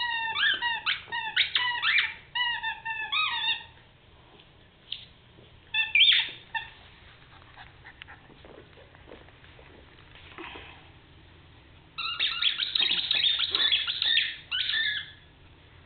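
Squeaky dog toy squeaked again and again as a cairn terrier bites and chews it: a quick run of high-pitched squeaks, a lone squeak about six seconds in, then another run near the end. Soft paw and mouthing knocks in the quieter middle stretch.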